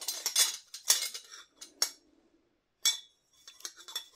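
Metal parts of a garbage disposal's three-bolt sink flange assembly clinking and clicking as they are handled and pulled apart by hand: a string of sharp clicks, the one about three seconds in ringing briefly.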